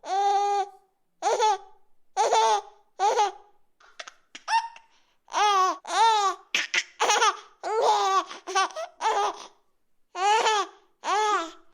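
A baby laughing in a string of short, high-pitched squealing bursts with brief pauses between them, quieter and sparser for a moment about four seconds in.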